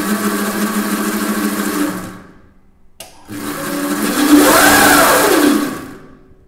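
ME1115 electric motor spinning its chain drive with a whine. It runs steadily for about two seconds and stops, then after a single click it spins up and back down, the whine rising and then falling in pitch.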